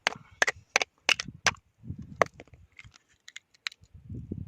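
Sharp cracks and knocks of a metal tool against hard oyster shell as oysters are pried open. About six cracks come in the first second and a half and another a little after two seconds, followed by lighter clicking.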